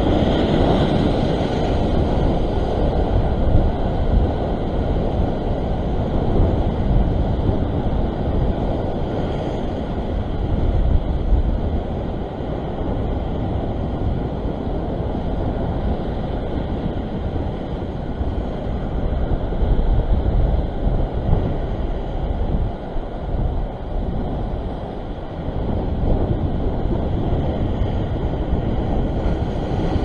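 Wind buffeting the microphone over the steady wash of ocean waves breaking against a rock ledge, swelling and easing with each set.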